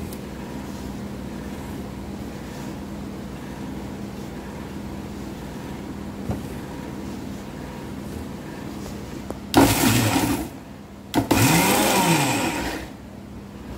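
Electric mixer grinder pulsed twice: a burst of about a second, then one of about a second and a half, the motor whirring up and winding down each time as it coarsely crushes grated coconut with garlic, cumin and chillies. Before the bursts there is only a steady low hum.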